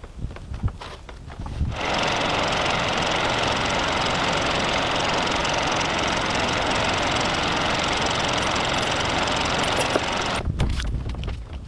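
A power tool running steadily under load, starting abruptly about two seconds in and cutting off near the end, with a few knocks before and after.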